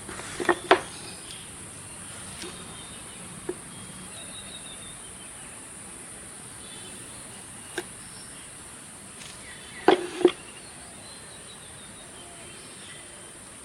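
A few sharp knocks of wood pieces being handled and set against each other: a pair about half a second in, a single one near eight seconds and a louder pair about ten seconds in. A steady high hiss runs underneath.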